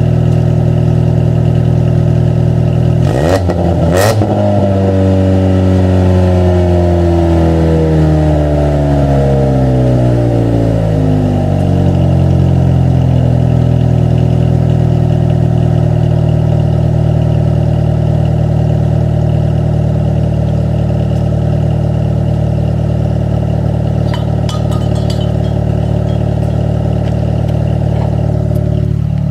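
1998 Eagle Talon ESi's 2.0-litre four-cylinder engine running through a DNA Motoring exhaust with no catalytic converter, idling, with a quick rev about three seconds in that sinks slowly back to idle over the next several seconds. The engine runs rough, which the owner puts down to a second oxygen sensor that needs replacing.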